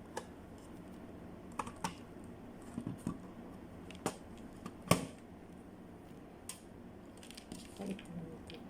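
Scattered light clicks and taps of small plastic accessories and packaging being handled, with one sharper knock about five seconds in.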